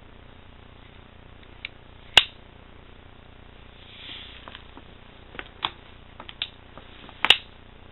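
Tacforce folding knife, its broken assist spring removed, being worked open and shut by hand: a few sharp clicks of the blade and liner lock, the loudest about two seconds in and a double click near the end, with fainter small clicks between.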